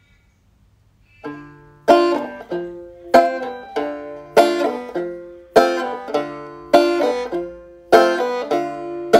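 A banjo comes in about a second in and plays strummed chords in a steady rhythm, a strong strum about every 0.6 s with lighter notes between.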